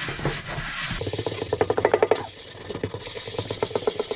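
Kitchen sponge scrubbed hard over the ridged, burnt underside of a frying pan in a stainless-steel sink. From about a second in it is a fast, even rasping of quick repeated strokes.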